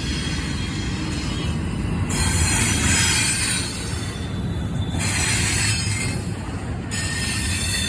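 CSX intermodal freight train rolling past through a road crossing: a steady rumble of the cars on the rails, with a higher hiss of wheels on rail that swells and fades several times.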